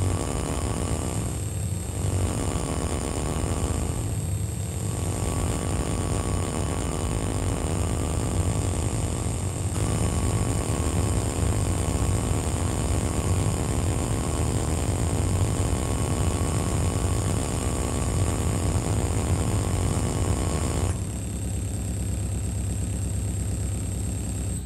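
Loud electronic noise-music drone: a dense, steady rumble with a deep hum underneath and thin high tones above. Its texture shifts about ten seconds in, thins a little near the end, then cuts off abruptly.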